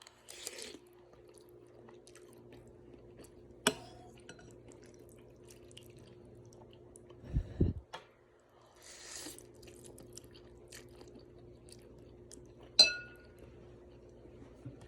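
Someone eating a bowl of pork ramen: a utensil clinks sharply against a bowl or glass twice, the second clink ringing, with quieter chewing and eating noises and a few short hissy bursts between. A steady low hum runs underneath.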